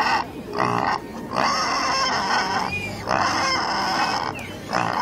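Pigs squealing: several long, loud, high-pitched squeals one after another with short breaks between them.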